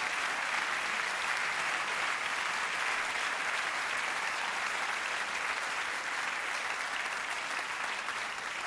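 Theatre audience applauding steadily, the clapping easing slightly near the end.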